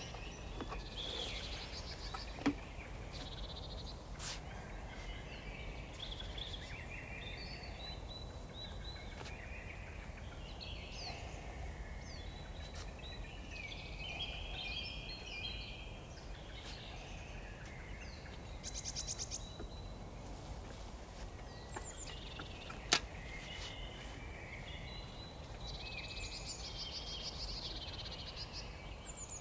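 Several songbirds singing and calling one after another over a steady low background noise, with a few single sharp clicks, one of them about 23 seconds in.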